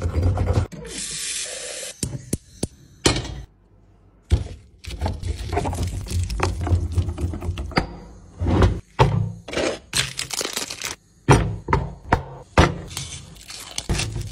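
Stone pestle pounding and grinding garlic and basil in a stone mortar for pesto. A scraping grind comes first, then irregular thuds and knocks of stone on stone, quicker and sharper near the end.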